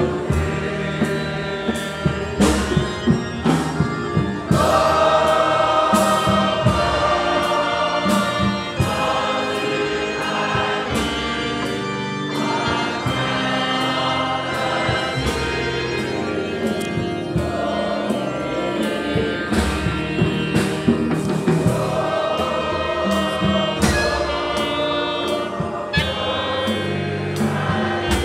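Church choir singing a gospel hymn with a steady beat on conga drums and a drum kit, about two strokes a second, and a clarinet playing along.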